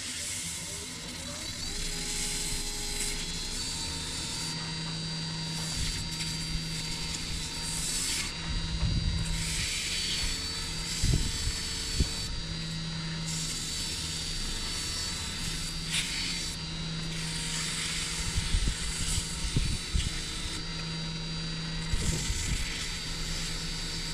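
Wood lathe motor running with a steady hum and whine, speeding up over the first couple of seconds. 220-grit sandpaper is held against the spinning live oak top, adding a rough hiss and a few light knocks.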